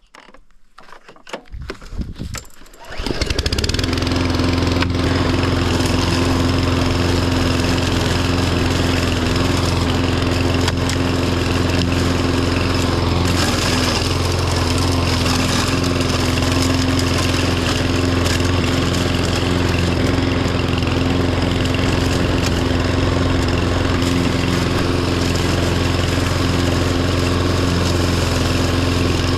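Riding tractor mower engine cranked and catching about three seconds in, then running steadily at constant speed.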